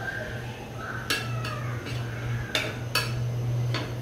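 Long metal spatula scraping and clinking against a flat frying pan while stirring dried red chillies frying in oil, with four sharp clicks over a steady low hum.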